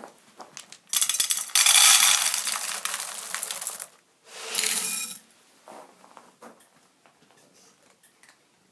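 Dry cat food being poured into a dish, a loud rattling clatter for about three seconds, then a second shorter pour with the dish ringing. Faint scattered clicks follow.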